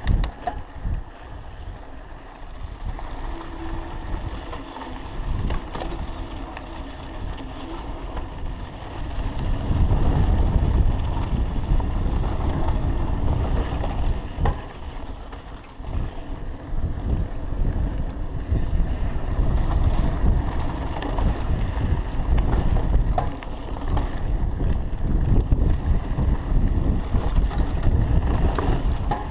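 Wind buffeting an action camera's microphone on a mountain bike riding down dry dirt singletrack, mixed with tyre rumble and the bike rattling over rough ground. It grows louder about ten seconds in.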